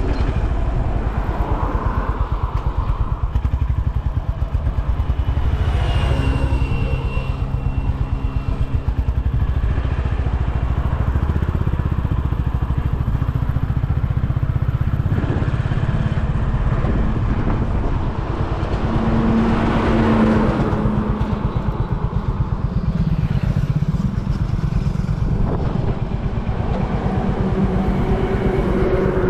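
Honda H'ness CB350's single-cylinder engine running steadily while riding, a continuous low pulsing drone.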